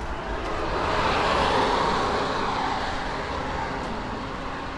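A car driving past: its tyre and engine noise swells, is loudest about a second and a half in, then fades away.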